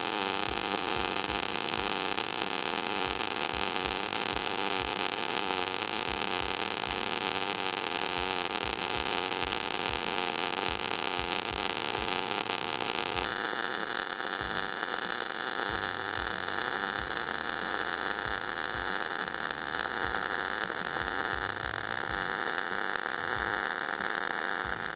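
MIG welding arc on steel square tube, running ER70S-6 wire of .035 in at about 300 in/min and 20 V on an Everlast Lightning MTS-275: a steady hiss and crackle. The tone shifts a little past the middle, and the arc cuts off abruptly at the end.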